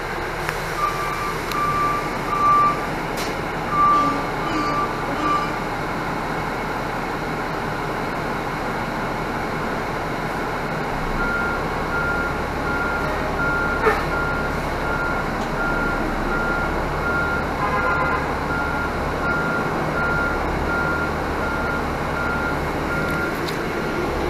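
Reverse alarm beeping steadily, a little under twice a second, from about halfway through, over the running hum of a 2018 Nova Bus LFS diesel transit bus as it backs out of its bay. In the first few seconds a lower beep sounds in short broken runs.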